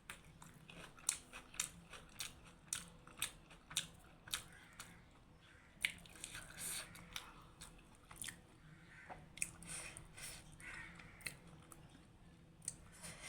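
Close-up eating sounds: someone chewing buff momo, with frequent wet mouth clicks and smacks at an uneven pace.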